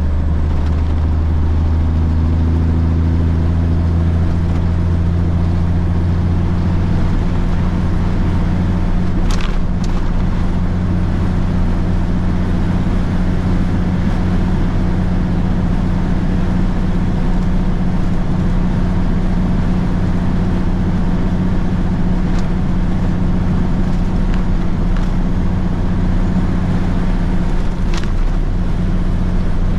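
Kenworth K100 cabover's diesel engine pulling the truck along, heard from inside the cab as a steady low drone with road noise. Two brief sharp sounds cut through, about nine seconds in and again near the end.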